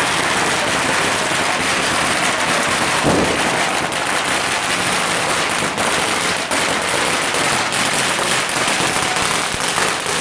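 Firecrackers crackling in rapid, unbroken succession, many small bangs running into one another.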